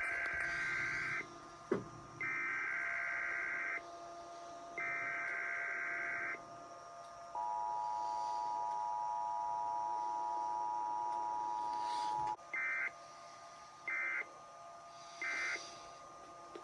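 Emergency Alert System tones: three bursts of the warbling digital header about a second apart, then the two-tone attention signal held for about five seconds, then three short end-of-message bursts. Faint steady tones run underneath.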